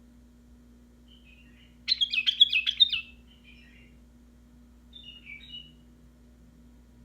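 White-eared bulbul singing: a loud burst of quick notes about two seconds in, with softer short phrases just before and after it and another soft phrase around five seconds in.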